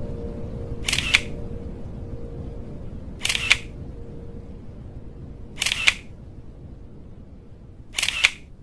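Camera shutter clicks, four times, evenly spaced a little over two seconds apart, each a quick sharp click, over a faint low background hum.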